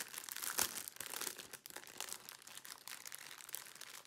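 Small self-seal plastic bags of diamond-painting drills crinkling and rustling as they are handled, busier in the first couple of seconds and fainter after.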